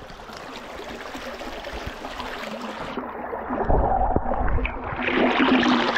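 Creek water running, then the camera is dipped under the surface about three seconds in: the sound turns muffled, and water rumbles and gurgles against the submerged microphone, getting louder toward the end.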